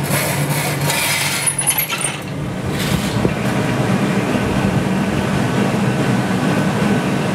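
Steady roar of a glassblowing studio's gas-fired furnace and reheating burners with their blowers, with a low hum underneath. A couple of light metallic clinks come about a second and a half in.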